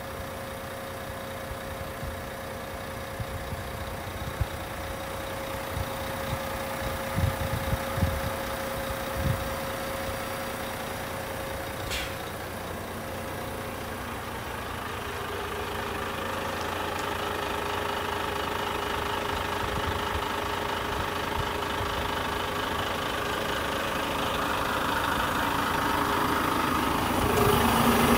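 Renault T460 tractor unit's 460 bhp Euro 6 diesel engine idling steadily, heard from around the truck's chassis and growing louder near the end as it is approached. A few dull thumps sound about seven to nine seconds in.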